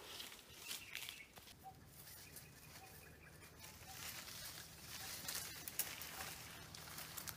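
Leaves and branches rustling and footsteps crunching as someone pushes through dense forest undergrowth, with a bird calling in short, evenly repeated notes in the background.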